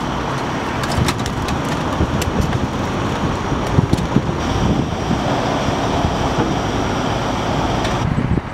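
Outdoor roadside noise: wind buffeting the microphone over a low rumble of vehicles and traffic, with a few sharp ticks in the first half.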